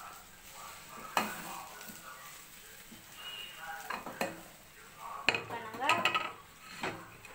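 Wooden spatula scraping and knocking in a kadai as the fried chilli potato bread mixture is scooped out into a plastic bowl, with several sharp knocks spread through.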